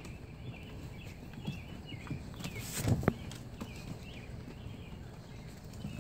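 Puppies' paws tapping and pattering on a wooden deck as they move about, with one louder knock about three seconds in.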